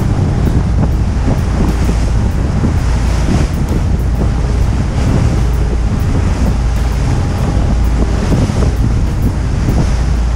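Wind buffeting the microphone over the steady drone of a tour boat's engine and the rush of water against the hull.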